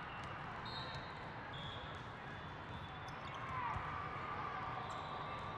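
Volleyball tournament hall din: a steady wash of voices with scattered sharp smacks of volleyballs being hit and bouncing, echoing in the large hall. A few brief high tones cut through.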